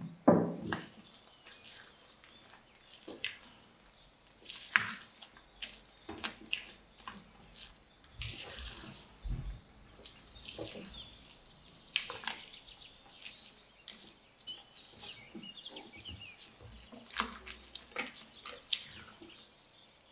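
Kitchen work: utensils and dishes clicking, knocking and scraping at irregular intervals, with a few brief scrapes about eight and ten seconds in.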